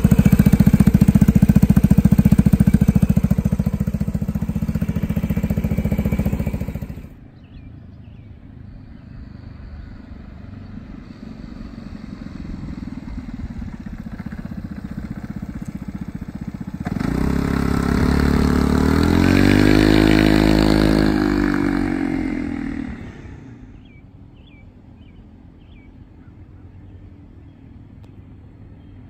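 Vespa GTS 300 Super's single-cylinder four-stroke engine running steadily, heard close to its exhaust. After a cut about a quarter of the way in, the scooter is heard approaching, gets loud as it rides past about two-thirds through with its engine note rising and falling, then fades away.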